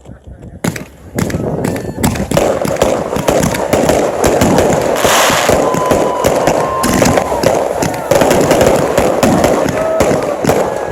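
Consumer fireworks going off: a couple of bangs in the first second or so, then from about two seconds in a continuous rapid barrage of cracks and pops.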